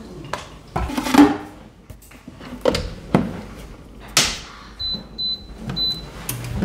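Oven-style air fryer being loaded and set: a few knocks and clicks as the wire-mesh tray goes in and the glass door is shut, then three short high beeps from its touch panel as the temperature is set.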